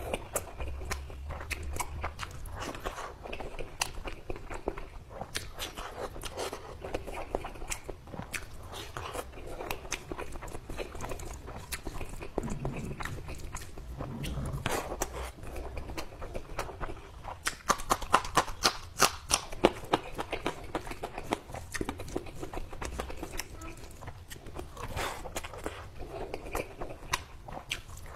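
Close-up eating sounds: wet chewing and mouth clicks from big mouthfuls of rice and chicken curry eaten by hand, mixed with the squelch of fingers mixing rice into curry gravy on the plate. A quick run of sharp clicks a little past the middle is the loudest part.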